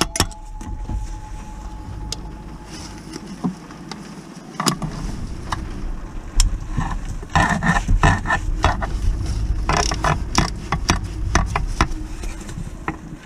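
Socket ratchet clicking in short quick runs as bolts at the release bearing in a gearbox bellhousing are turned, with metal clinks and handling knocks; the clicking is densest from about six to eleven seconds in.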